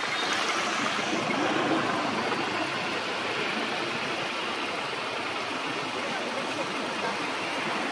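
Steady, even rushing background noise with no distinct calls or events.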